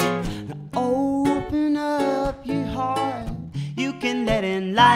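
Live acoustic folk music: ukulele and acoustic guitar strumming chords, with a sung melody coming in about a second in.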